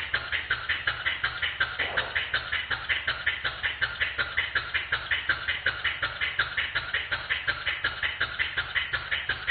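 PM Research model steam engine running, heard slowed down: a steady train of even exhaust chuffs, about five a second.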